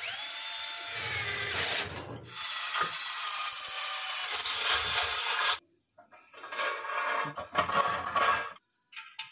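10.8 V cordless drill spinning up with a rising whine and drilling through an old pipe, in two runs with a short break between. Shorter, uneven bursts follow near the end.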